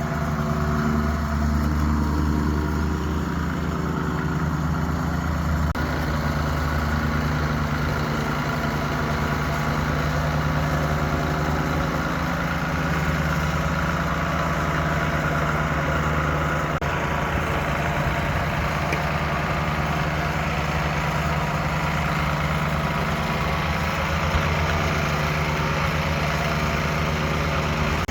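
Heavy construction machine's engine running steadily at a constant speed.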